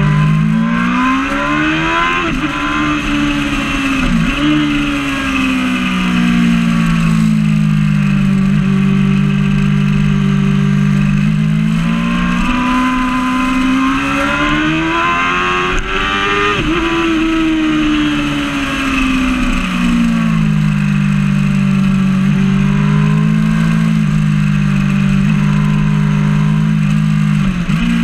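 Yamaha R6 600cc inline-four sportbike engine at high revs, heard from on board: it climbs in the first couple of seconds, dips briefly at a gear change near four seconds, holds steady, climbs again, then drops sharply about midway and falls away before holding steady again, with another quick dip near the end. Steady wind rush on the microphone underneath.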